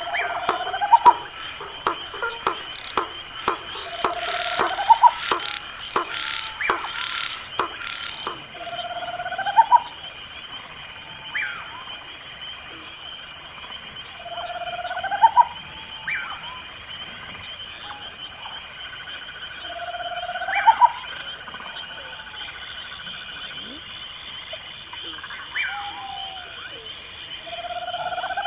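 A night chorus of crickets keeps up a steady high trill. About every five seconds a short rising call cuts in lower down, with faint high ticks scattered through.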